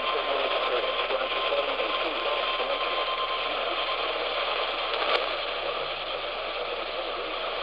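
Steady hiss and static of AM radio reception heard through a receiver, cut off above and below like a narrow radio band, with a faint steady whistle that fades out about three seconds in and a single click about five seconds in.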